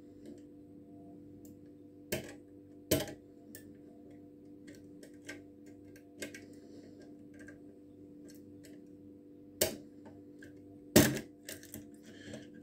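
Lever lock being picked with a tension bar and a wire pick: scattered small metallic clicks and ticks as the levers are worked, with a few sharper clicks, the loudest about eleven seconds in. A faint steady hum runs underneath.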